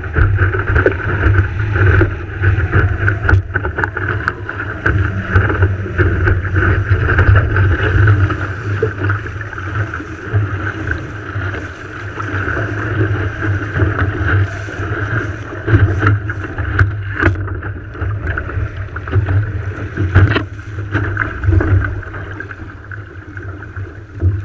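Wind buffeting the microphone and water rushing along the hull of a Farr 3.7 skiff under sail, with a few sharp knocks in the second half.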